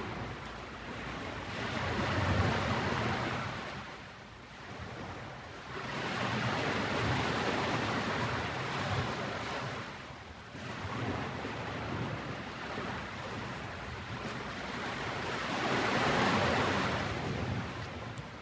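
Ocean waves breaking and washing up on a beach, swelling and fading three times as each wave comes in.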